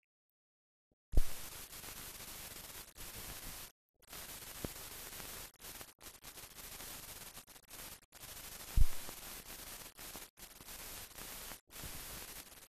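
Static hiss on an old film soundtrack, coming in about a second in and cutting out briefly several times, with a low thump as it comes in and a louder one about nine seconds in.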